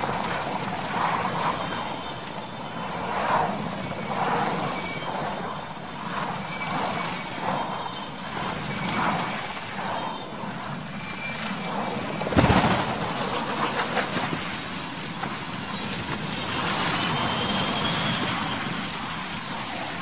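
Military transport helicopter running with a thin high whine, then one loud crash about twelve and a half seconds in as it goes over on the ground, followed by steady noise.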